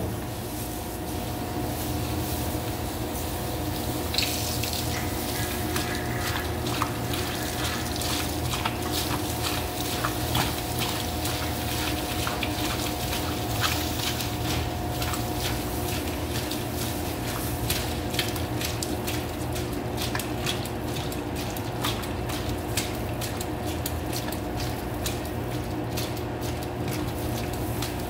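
Commercial spiral dough mixer running steadily, its motor humming, while the spiral hook kneads bread dough and the dough slaps wetly against the stainless steel bowl in many short, irregular smacks.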